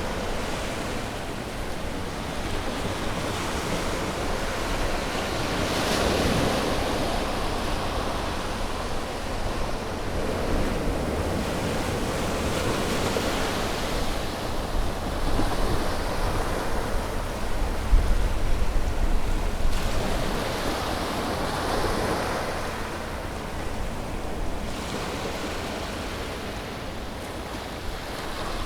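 Sea waves breaking and washing on a shore, the surf swelling and easing every few seconds, with a low wind rumble on the microphone.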